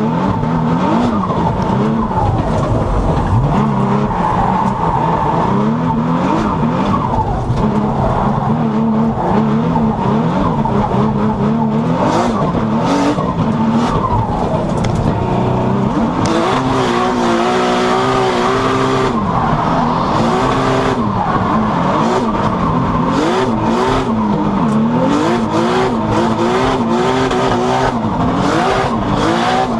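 Inside the cabin of a 1000 hp Nissan R35 GT-R drift car on a drift run: the engine revs rise and fall again and again, held high for a few seconds about halfway through, with tyres squealing.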